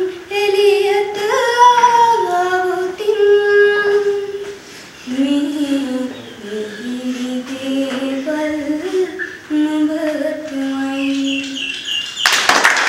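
A girl singing a slow melody alone, holding long notes and moving to a lower range about five seconds in. A short loud burst of noise comes near the end.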